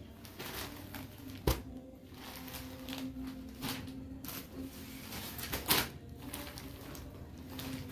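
Folded cotton sarees being handled, lifted off and set down on a sheet: fabric rustling with a sharp tap about a second and a half in and another near six seconds, over a low steady hum.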